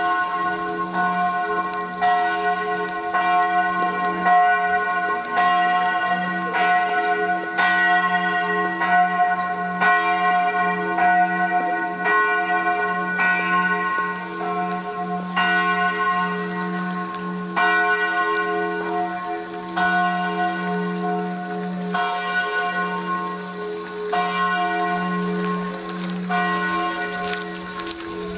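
Several church bells pealing together, a new stroke about every second over the long ringing hum of the bells.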